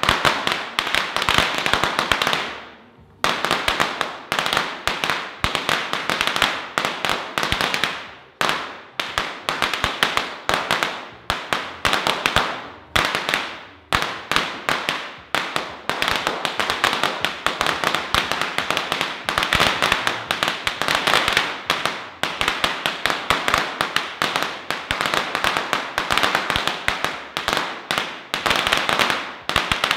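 A hanging string of firecrackers going off in a rapid, continuous crackle of sharp bangs, with a brief lull about two to three seconds in.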